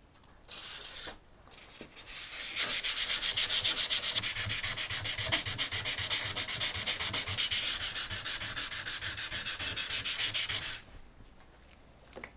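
Sandpaper rubbed rapidly back and forth by hand over a steel axe head wiped with WD-40, in quick even strokes that stop abruptly near the end, after a brief first scrape.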